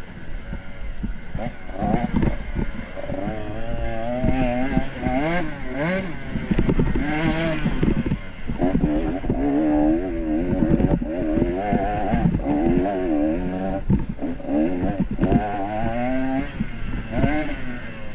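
Dirt bike engine revving up and down over and over, its pitch rising and falling every second or so as it is ridden through the course, with scattered knocks from the bike over rough ground.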